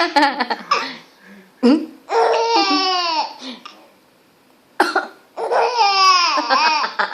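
A short cough, then a long peal of high-pitched laughter that slides down in pitch. The cough and the laughter come again about three seconds later.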